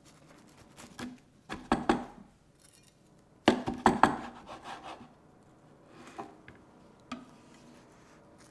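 A large kitchen knife crunching down through a toasted tonkatsu sandwich, toasted bread and crisp breaded pork cutlet, onto a wooden chopping board. The crunching comes in two rounds, about two seconds apart, the second the louder, with a few light knocks after.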